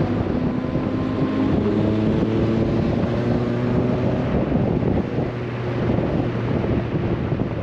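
A car driving along a city street, heard from a camera outside the side window: wind buffeting the microphone over a steady low engine drone and road noise.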